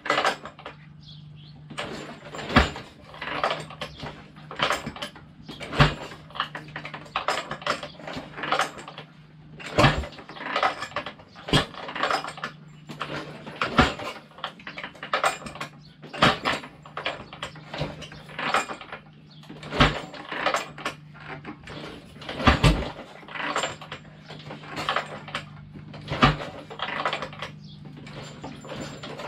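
Harley-Davidson Ironhead Sportster V-twin being kick-started over and over without catching: a sharp clank with each kick, about every two to three seconds, and clatter between, over a steady low hum. The owner puts the failure to start down to push rods that need adjusting.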